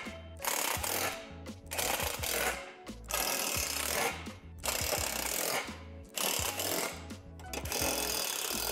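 Cordless impact driver running in short bursts, about six in a row, each a second or so long, as it drives bolts into the rungs of a steel tube ladder.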